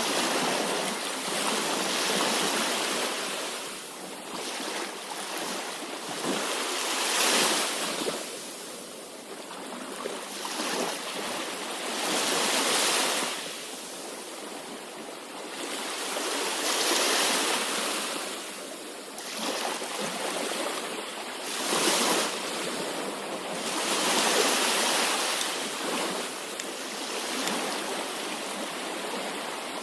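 Sea waves breaking, the surf swelling and fading every four to five seconds.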